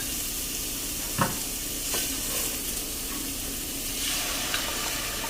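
Rotisserie chicken frying in a pan of butter and garlic, a steady sizzle while it is stirred, with a short knock a little over a second in.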